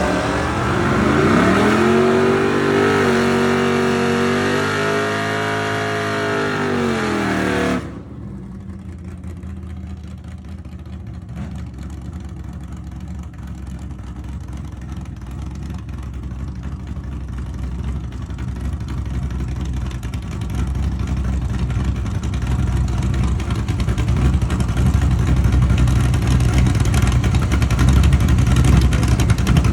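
Chevy II Nova's engine running hard, its pitch climbing and then wavering for several seconds. About eight seconds in it cuts off abruptly, and a low, rough engine rumble takes over and grows steadily louder.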